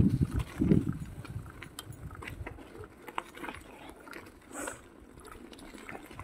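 Bicycle rolling along a gravel road: the tyres crunch over the stones and the bike gives off scattered small clicks and rattles. There are low rumbling bursts in the first second.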